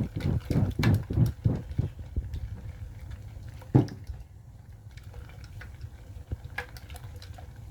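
Salt water being stirred in a jar to dissolve the salt: liquid swishing, with a quick run of knocks over the first couple of seconds and one sharper knock near four seconds.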